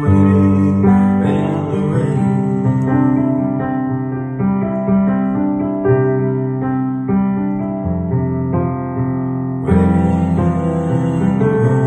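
Instrumental passage of a slow ballad on electric piano: held chords changing about once a second, with a fuller, brighter chord struck near the end and no singing.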